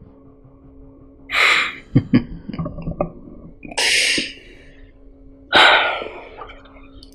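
A man's breath: three short, sharp, breathy bursts a couple of seconds apart, with a few small clicks between the first two, over a faint steady hum.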